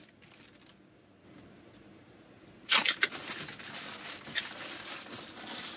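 Brown butcher paper crinkling and rustling as it is crumpled up by hand, starting suddenly about three seconds in after a quiet stretch.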